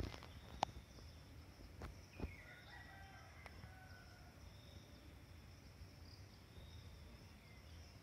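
A rooster crows once, faintly, starting about two seconds in and lasting about two seconds, over a steady high drone of insects. Two sharp clicks come near the start.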